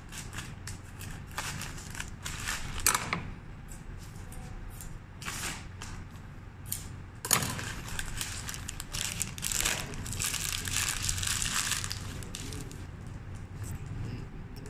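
White wrapping paper rustling and crinkling in irregular bursts as it is handled and adjusted around a bouquet, with a denser stretch of rustling in the middle, over a low steady hum.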